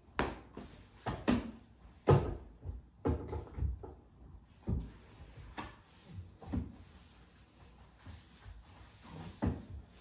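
Irregular knocks and scrapes of long plastic-handled cleaning tools, a thin cleaning stick and a telescopic duster, being worked under a sofa and set down on a rug. The sharpest knocks come in the first two seconds, with lighter ones after.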